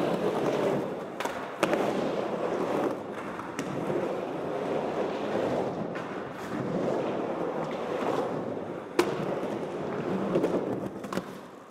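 Skateboard wheels rolling back and forth on wooden ramps, the rolling swelling and fading every couple of seconds, with a few sharp clacks of the board.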